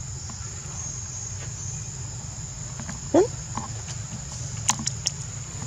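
Insects keep up a steady, high-pitched drone over a low, steady rumble. A single brief call sweeps up and back down about three seconds in, and a few faint clicks follow near the end.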